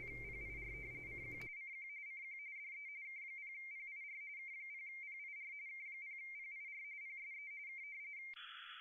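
RTTY radioteletype signal from an Icom 7300 sending FSK: a steady high tone near 2 kHz warbling rapidly between two close pitches. Near the end the sending stops and the tone gives way to receiver hiss.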